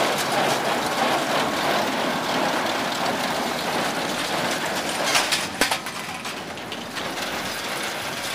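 Tractor-drawn Welger small square baler running steadily, its machinery a continuous mechanical rattle, with a few sharp clicks and knocks about five seconds in.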